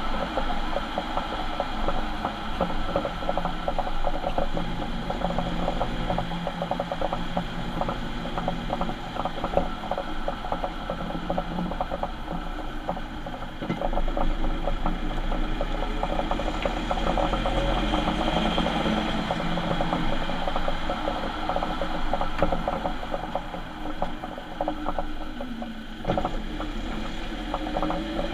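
Ford Transit van's bad differential, heard while the van runs: a fast, dense mechanical clicking and rattle over a steady whine and low drive rumble, with a tone rising in pitch near the end.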